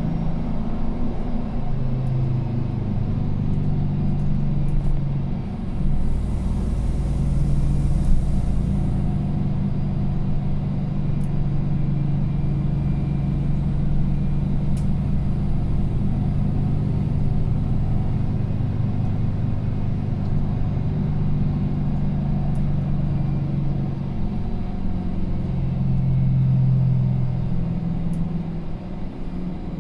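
Mercedes-Benz M 936 G natural-gas engine of a Citaro articulated bus running under way, heard from inside the passenger cabin: a steady low drone whose pitch shifts as the bus speeds up and eases off. Between about six and nine seconds in there is a deeper rumble and a brief hiss.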